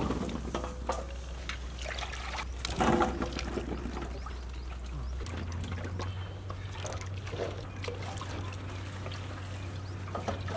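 Wet, freshly washed grapes tumbling and being spread in a shallow metal tray, water trickling and dripping off them, with many light clicks of fruit against the metal. The loudest moments come at the start and again about three seconds in.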